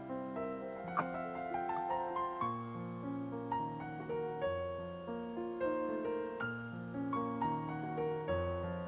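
Background piano music, a gentle melody over a soft chord accompaniment.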